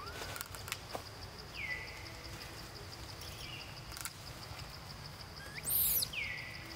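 A baby macaque gives one short, high-pitched cry about six seconds in, the loudest sound here. Underneath it, insects keep up a steady high whine, and a falling call repeats every few seconds.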